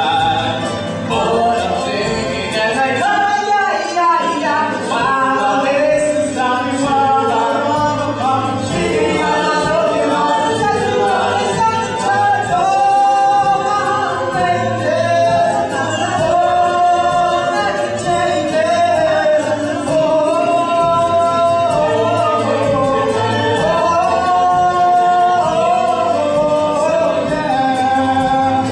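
Several voices singing together over instrumental accompaniment, a song from a stage musical.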